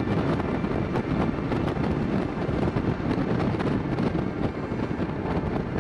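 Motorcycle riding along, a steady engine and road rumble mixed with wind noise buffeting the helmet microphone.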